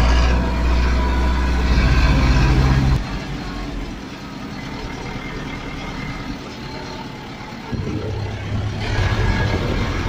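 Zetor 6340 tractor's diesel engine running under load, heard from inside the cab, a steady low drone. About three seconds in it drops to a quieter, rougher noise, and it comes back louder near the end.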